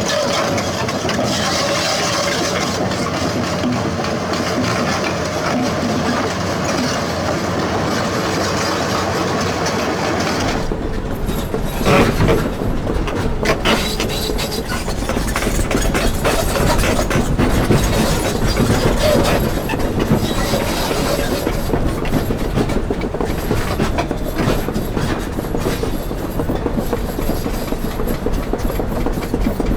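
Doosan 500LCV excavator working, its diesel engine and hydraulics running steadily. About ten seconds in a deeper rumble sets in, with repeated knocks and clanks; the loudest knock comes about twelve seconds in.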